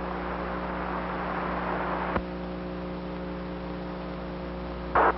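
Steady hiss and electrical hum on an open radio audio line, with a single click about two seconds in and a short burst of static near the end.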